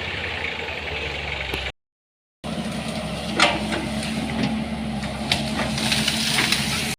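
Engine running steadily, with a few short knocks. The sound drops out completely for under a second about two seconds in.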